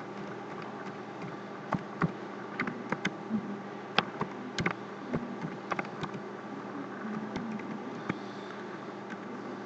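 Typing on a computer keyboard: irregular key clicks over a steady electrical hum.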